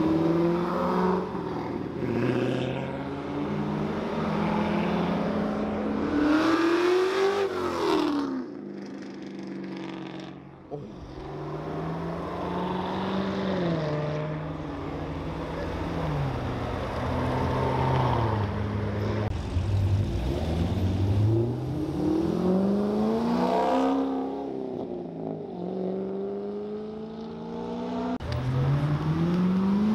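Car engines revving, their pitch climbing and falling again several times.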